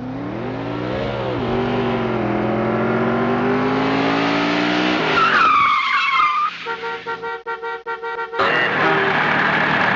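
Car sound effects: an engine revving, rising and falling in pitch for about five seconds, then a tire screech, followed by a rapidly pulsing tone and a rushing noise near the end.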